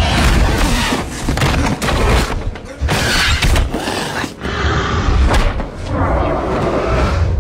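Film fight sound effects: several heavy thuds and booming body impacts as a man is grabbed and thrown across a stone floor, with music underneath.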